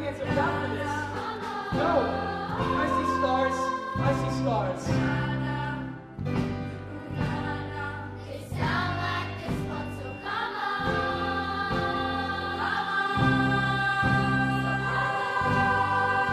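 Middle-school choir singing together with a live house band, the voices in sustained chords over bass notes.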